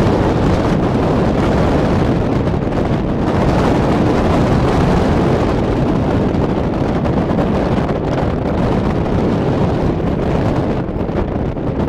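Strong wind of about 20 to 30 knots blowing across the microphone on a square-rigged sailing ship under way: a steady, loud, low noise.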